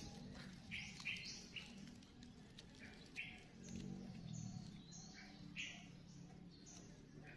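Faint chirping of small birds: short, separate calls, about two a second, over a faint low background hum.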